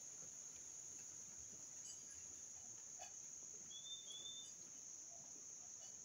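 Steady high-pitched insect trill, with two short whistled bird notes about four seconds in.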